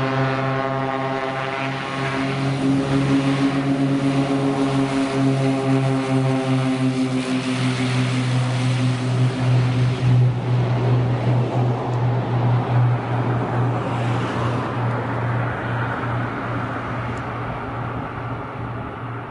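Cessna 310's twin six-cylinder piston engines and propellers running up for takeoff: a throbbing, beating engine hum that turns into a louder, rough propeller roar partway through, then fades steadily as the plane runs away down the runway.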